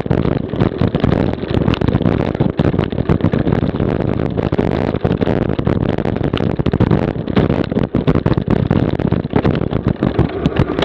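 Cyclocross bike riding fast over a bumpy grass and dirt course: a steady rumble of tyres and wind on the bike-mounted camera's microphone, with frequent clicks and rattles as the bike jolts over rough ground.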